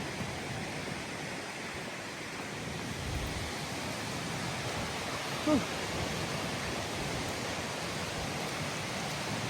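Steady rushing of a waterfall. About five and a half seconds in there is one brief pitched sound that falls in pitch.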